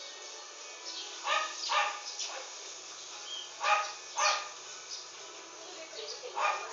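A dog barking in two short runs of two or three barks, the second run about two seconds after the first.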